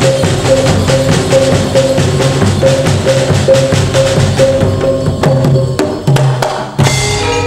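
Javanese gamelan ensemble playing a fast, loud passage driven by rapid drumming and wooden knocking over a repeated high note. The playing thins out about five seconds in, and a single loud strike lands near the end.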